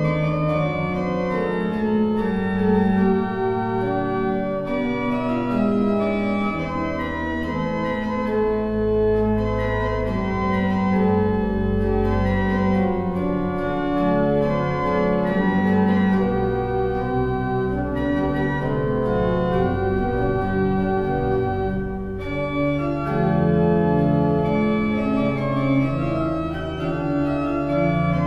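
Pipe organ playing slow music of held chords that change step by step, with deep bass notes strongest in the middle.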